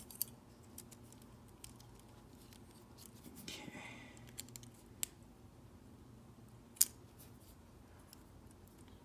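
Small clicks and scrapes of hard plastic model-kit parts being handled as a tight-fitting part is worked loose, with a brief scraping rustle about three and a half seconds in and a sharp click about seven seconds in.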